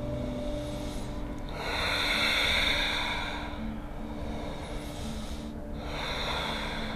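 Slow, deep breathing: two long, hissing breaths, the first starting about a second and a half in and the second near the end, over soft background music.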